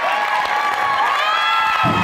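Audience cheering, laughing and applauding, with whoops and shouts held over steady clapping.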